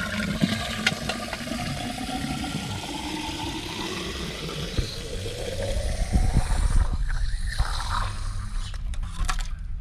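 Tap water running into a welded stainless exhaust downpipe to fill it for a leak test; the pitch of the filling sound shifts as the pipe fills. About six seconds in, louder low rumbling and knocks take over as the pipe is handled.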